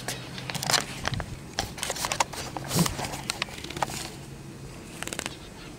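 Hands catching finches inside a wire cage: a string of irregular rustles, knocks and clicks against the cage, over a low steady hum.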